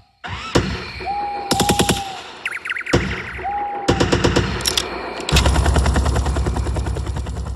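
Automatic gunfire: several short bursts of rapid shots, then a long continuous burst from about five seconds in. A few short whistling tones sound between the early bursts.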